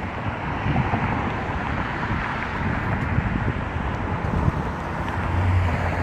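Steady rumble of a diesel engine on a Cat 315C excavator running, with wind gusting on the microphone. A steadier low hum comes in near the end.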